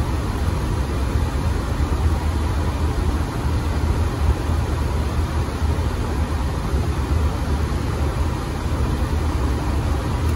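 Boeing 737 MAX cabin noise in flight: a steady low rumble of the CFM LEAP-1B engines and airflow with an even hiss and a faint steady whine, heard during the climb through cloud.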